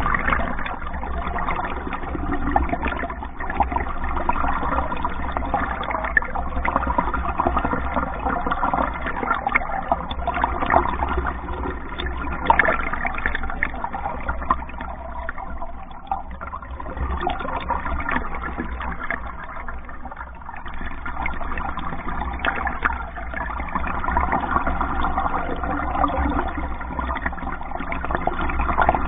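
Water rushing and gurgling along the woven-composite hull of a Hornbeck pack canoe as it moves through the water, with a steady low rumble underneath.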